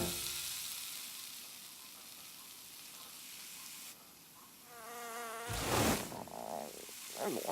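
Cartoon sound effects: a fading hiss, then a short wavering insect-like buzz, followed at once by a loud burst of noise and a few quick sliding tones near the end.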